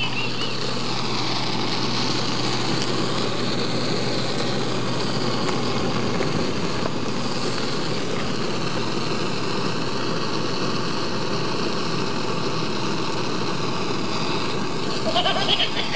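Handheld gas-cartridge blowtorch burning with a steady, unbroken hiss.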